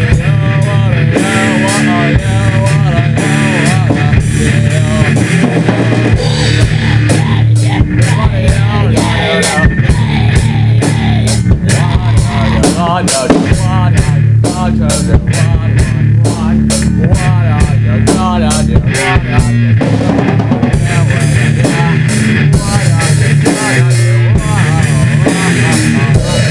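Heavy metal music with a drum kit, distorted guitar and bass. In the middle stretch the drums play a run of very fast, rapid-fire hits.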